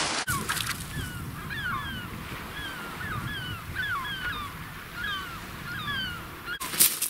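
A flock of birds calling over and over, each call a short falling note, over a low steady rumble. Near the end come several sharp crunching noises.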